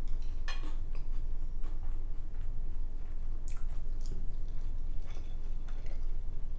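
Close-miked eating sounds: chewing with scattered short, wet mouth clicks and squishes.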